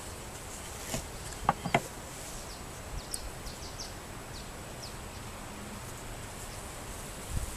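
Carniolan honeybees humming around an open top-bar hive, with a few sharp knocks of wooden top bars, two of them close together about one and a half seconds in.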